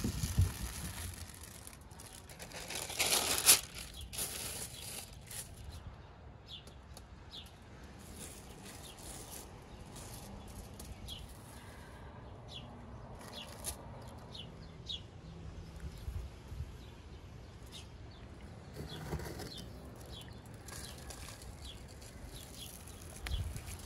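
Aluminium foil and paper being unrolled and handled on a wooden table: a few bursts of crinkling and rustling, the loudest about three seconds in, with quieter handling between. Small birds chirp now and then in the background.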